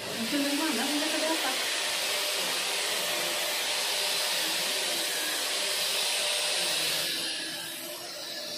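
Green upright stick vacuum cleaner running steadily with a loud hiss as it is pushed over synthetic grass. It begins abruptly and drops a little in level in the last second or so.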